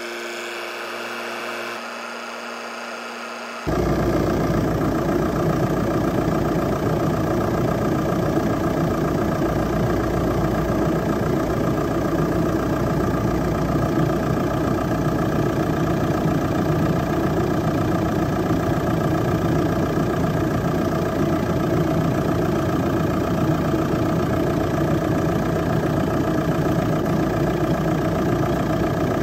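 Audi A4 B7 2.0 TDI diesel engine idling steadily while its cooling system is bled, louder from about four seconds in.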